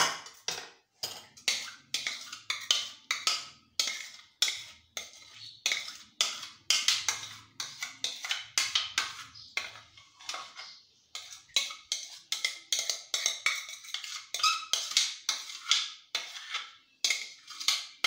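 Metal spoon scraping and knocking against a ceramic bowl while scooping out thick custard: a steady run of sharp, irregular clicks and taps.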